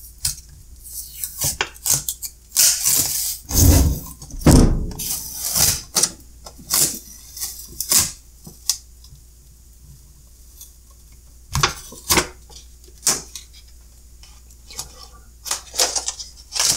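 Thin clear plastic sheet being peeled off the front of a pair of sealed lead-acid batteries and handled, crinkling in irregular bursts. There are two dull thumps about three and a half and four and a half seconds in, and a quiet pause in the middle.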